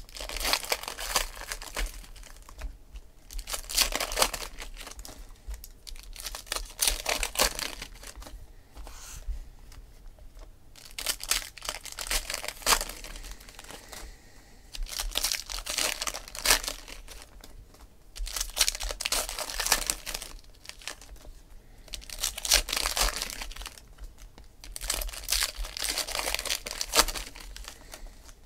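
Foil wrappers of Panini Elite Extra Edition baseball card packs crinkling and tearing as packs are ripped open, with the cards inside shuffled and flipped through by hand. The sound comes in repeated bursts of a second or two, a few seconds apart.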